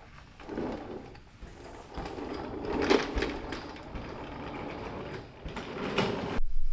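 Metal clattering and scraping from a T5 manual transmission being worked loose and pulled from the bell housing. The sound is loudest about three seconds in and cuts off suddenly near the end.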